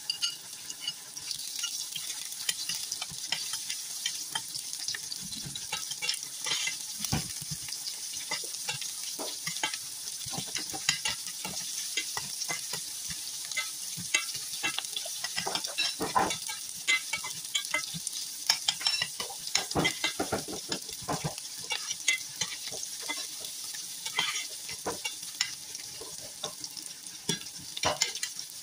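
Sliced red onions sizzling in hot oil in a stainless steel pan, with frequent scrapes and clicks of a spatula against the pan as they are stirred.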